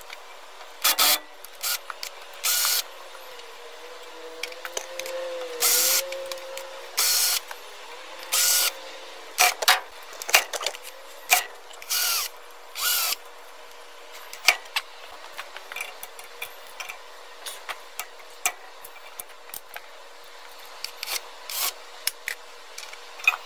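Power drill/driver run in about seven short bursts, each spinning up and winding down, as it backs out the screws holding the check valve in a pulse furnace's air intake. Clicks and light metal handling noises follow in the second half.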